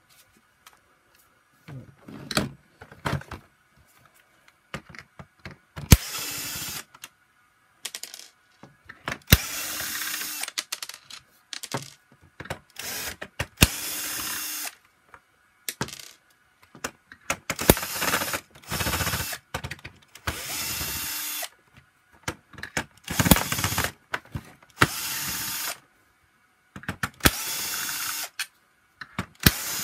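Bosch cordless drill-driver whirring in short bursts of about a second each, backing screws out of the plastic housing of a vacuum power nozzle. Sharp clicks and knocks of handling come between the bursts.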